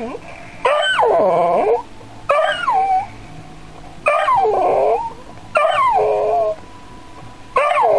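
Dog howling and whining in a string of five cries, each about a second long or less, starting high and sliding down in pitch.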